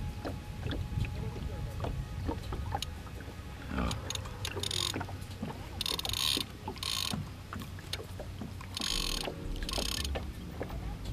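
Spinning reel and tackle clicking and ticking as a wels catfish is played at the side of a boat, with five or six short splashy hisses as the fish thrashes at the surface.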